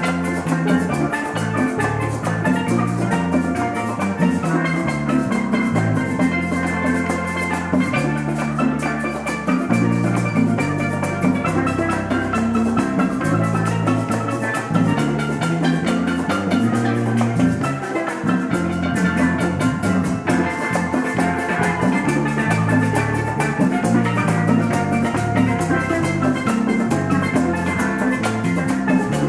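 Instrumental worship music from a church band: drums over a moving bass line, with a bright pitched instrument playing held notes and runs at a steady beat.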